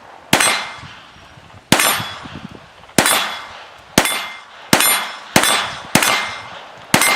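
Browning Buck Mark .22 LR pistol firing Remington Golden Bullets: eight sharp shots, each followed by a short ringing echo. The first few come about a second apart, and the shots quicken to roughly two a second toward the end.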